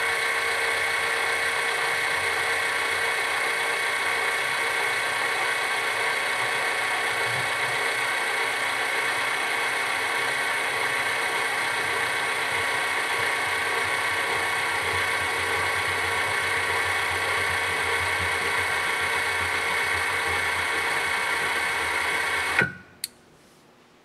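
ServoCity Super Duty SDA8-30 linear actuator's geared DC motor running steadily as the rod retracts, a constant whine. It cuts off abruptly near the end, followed by a short click, as the actuator reaches its inboard limit switch.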